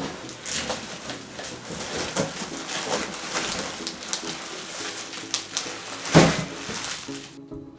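Packaging being handled during an unboxing: rustling and clicking of cardboard and plastic, with a louder thump about six seconds in, over quiet background music.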